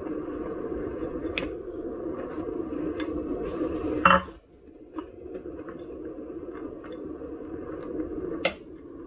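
Hand tools clicking and knocking against metal during work on the wheel, with one louder clatter about four seconds in.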